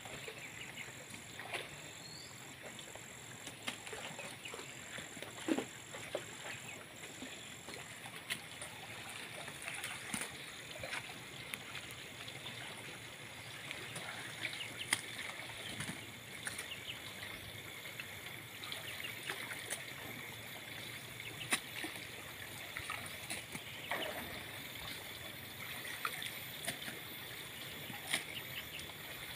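Muddy water sloshing and splashing as people wade and work in a shallow flooded pool, with scattered short knocks and clicks over a steady high whine.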